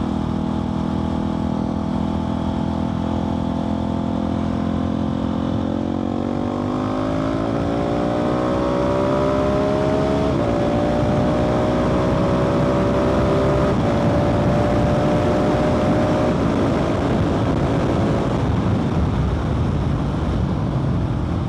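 Husqvarna 701's single-cylinder four-stroke engine running through an Arrow exhaust over wind rush. It holds a steady note, then accelerates hard with rising pitch. The pitch drops suddenly about ten and fourteen seconds in as the quickshifter clicks up a gear. The engine note fades into the wind noise near the end.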